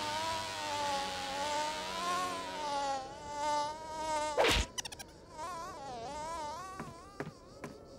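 Cartoon sound effect of a buzzing insect flying about, its pitch wavering up and down. About four and a half seconds in comes one loud hand clap as it is swatted at, and the buzzing carries on, with a few lighter claps near the end.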